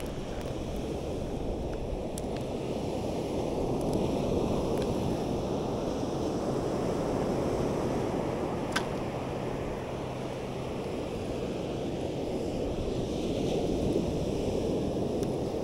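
Ocean surf washing up the beach, with wind on the microphone; one sharp click about nine seconds in.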